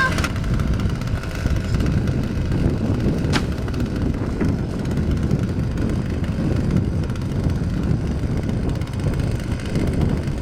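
Steady low rumble, with one short sharp click a few seconds in.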